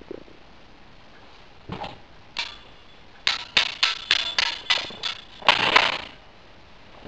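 Hard objects knocking and clattering in a kitchen. After a couple of isolated knocks comes a quick run of about eight sharp bangs, roughly four a second, then a louder clatter lasting about half a second.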